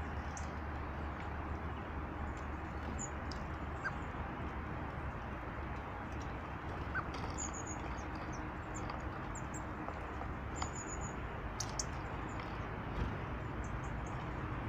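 Small birds giving short, high chirps now and then over a steady rushing background noise.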